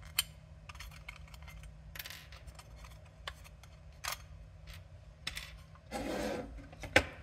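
Handling noise from an aluminium Raspberry Pi enclosure and its parts being taken apart on a tabletop: light clicks and rubbing as metal and circuit-board pieces are turned over and moved. There is a sharp click shortly after the start, a brief scuffing slide about six seconds in, and the loudest click just before the end.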